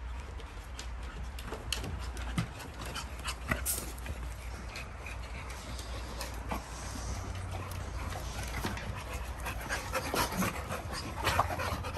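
American bully dogs panting, with scattered sharp knocks as they move about.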